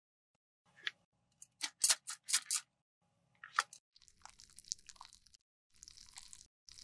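Several sharp plastic clicks and crackles in the first half as a tub of disposable micro-applicators is opened and handled, then soft scraping as lipstick residue is scraped out of an empty metal lipstick tube with a micro-applicator and wiped from inside a lipstick case with a cotton swab.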